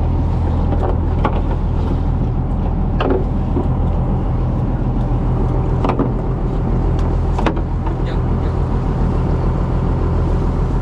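Boat engine running steadily with a low drone. A few sharp knocks sound over it, about three, six and seven and a half seconds in.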